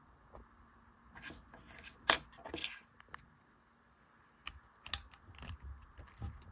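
Plastic mechanical-keyboard keycaps clicking and clattering: about a dozen irregular, sharp clicks, the loudest about two seconds in.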